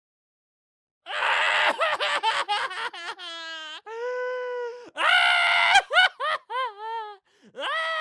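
A person crying hard: after a second of silence, choppy gasping sobs give way to long, high held wails and falling sobs, and a new wail rises near the end.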